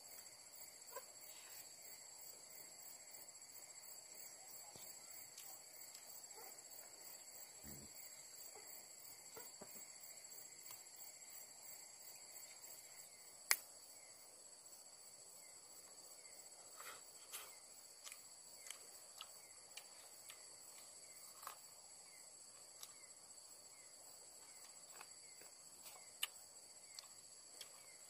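A chorus of night insects trilling steadily at several high pitches. Faint scattered clicks and taps from handling food on leaves break through, with a sharp click about halfway through and another near the end the loudest sounds.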